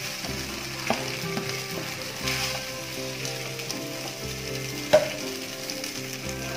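Boiled, drained ada rice flakes sizzling in a hot non-stick pan, with a few sharp knocks on the pan, the loudest about five seconds in. Background music with held notes plays underneath.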